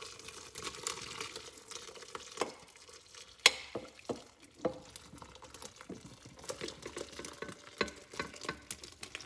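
Hot tomato, vegetable and stock mixture poured from a steel saucepan into a slow cooker: liquid pouring with irregular plops and splats as chunks of vegetable land, the loudest about three and a half seconds in.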